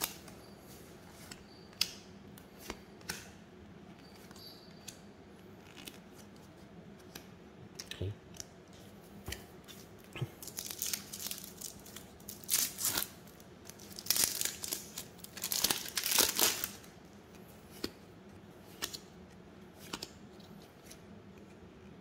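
A trading-card pack wrapper being torn and crinkled, with a few light clicks of cards being handled; the tearing and crinkling comes in a cluster of bursts in the middle of the stretch, from about ten to seventeen seconds in.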